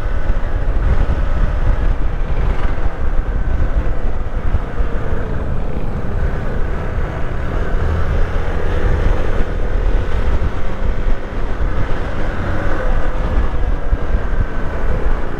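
Motorcycle engine running at a steady cruise, its pitch drifting gently up and down, with wind rushing over the microphone.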